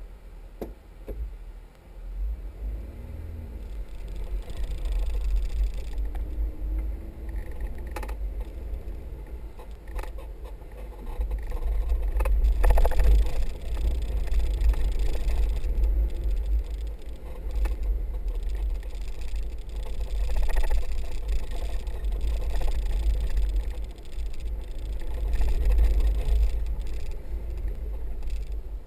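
A 4x4 driving over soft desert sand dunes: a low, uneven rumble of engine and wind that swells and fades, with a few sharp knocks along the way.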